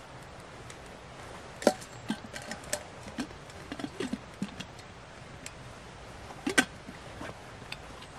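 Gear being handled and packed at a rucksack: cloth moved about, with a scatter of short sharp clicks and small knocks, the loudest about one and a half seconds in and again about six and a half seconds in.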